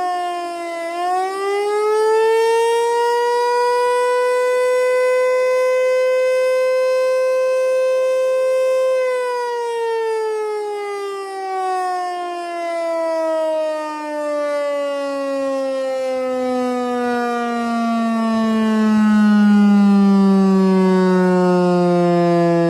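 Federal Signal Eclipse 8 outdoor tornado siren sounding a single loud tone for its routine monthly test. The pitch dips briefly, climbs back and holds steady for several seconds, then slides slowly lower.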